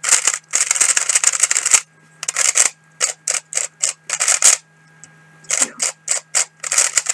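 Plastic 3x3 speedcube being turned quickly in a run of short clacking bursts as its layers snap round, with a brief pause a little before five seconds. The cube is factory-lubricated.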